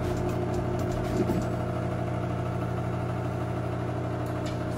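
Microwave oven running with a steady hum while heating a bowl of milk to the boil.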